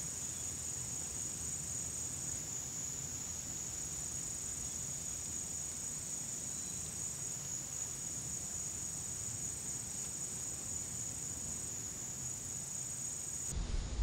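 Steady, high-pitched, unbroken drone of insects.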